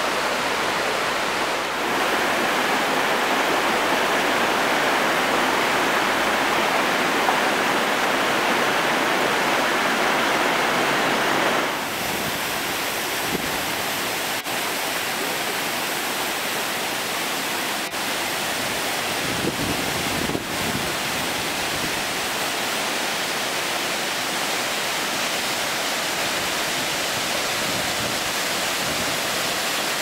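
Waterfall with a steady rush of falling water. The sound changes abruptly twice, about two and twelve seconds in.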